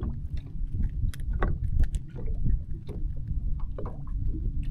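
Low rumble of wind and water around a small fishing boat, with a faint steady hum under it, and scattered sharp clicks and taps as a crappie is handled by hand to work the hook free.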